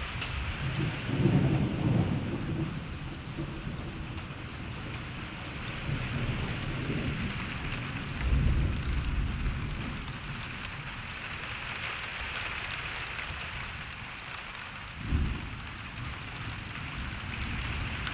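Steady rain hiss with thunder rumbling several times: a deep, drawn-out roll about a second in, further rolls in the middle, and a short, sharper clap near the end.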